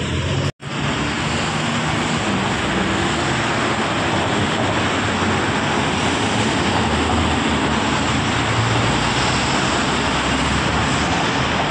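Steady roar of city street traffic, with engines humming under a dense noise. It drops out for a moment about half a second in, then runs on evenly.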